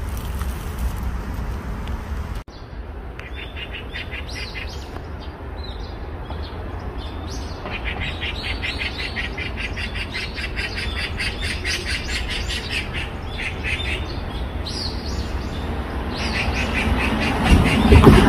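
Small birds chirping in quick repeated trills over a steady low background rumble. A louder burst of low noise comes near the end.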